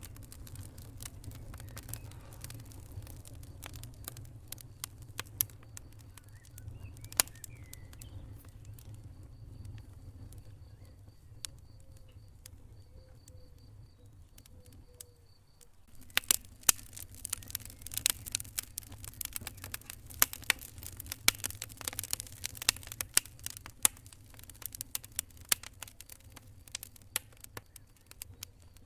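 Wood fire crackling and popping in a fireplace over a steady low rumble of the flames. The pops come sparsely at first and grow much denser about halfway through.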